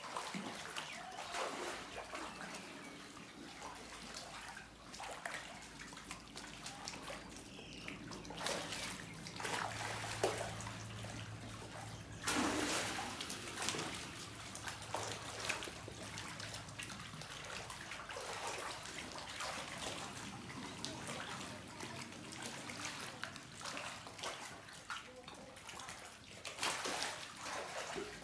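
Water sloshing and splashing as a crowd of crocodiles shifts and swims in a shallow pool, with irregular surges and a louder splash about twelve seconds in. A low steady hum runs for several seconds midway.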